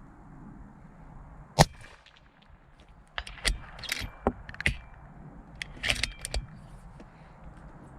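One loud rifle shot about one and a half seconds in, from a bolt-action precision rifle, followed by two quick runs of sharp metallic clicks and clacks as the bolt is cycled for the next round.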